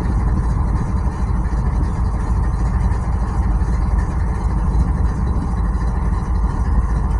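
Diesel freight locomotive engines idling, a steady deep rumble.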